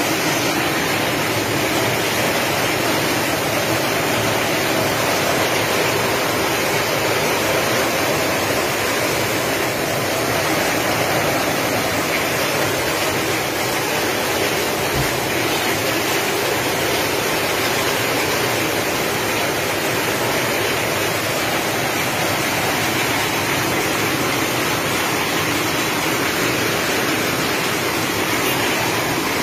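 Heavy tropical rain pouring down in a steady, dense hiss that does not let up.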